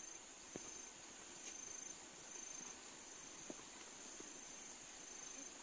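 Faint insects trilling in the vegetation: a high, even trill that swells and fades about once a second, with a couple of faint ticks.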